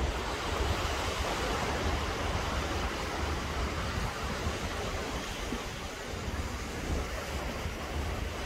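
Small sea waves washing up onto a sandy beach: a steady surf hiss. Under it is a low, fluttering rumble of wind on the microphone.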